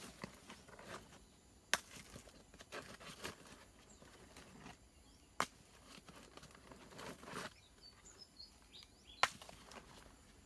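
Rustling with three sharp knocks, about two, five and nine seconds in, as stones and wood are handled on the ground, with a few faint high chirps near the end.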